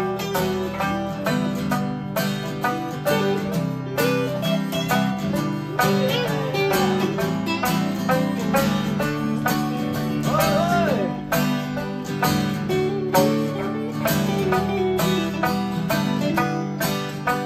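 Two acoustic guitars strumming chords while a sanshin, the Okinawan three-stringed lute, plucks a melody over them; an instrumental passage with no singing.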